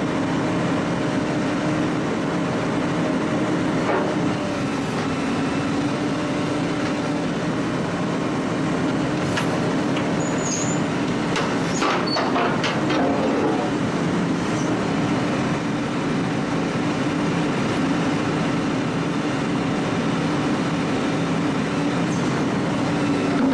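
A large machine runs with a steady engine drone, and a cluster of sharp metallic clanks and squeals comes about halfway through.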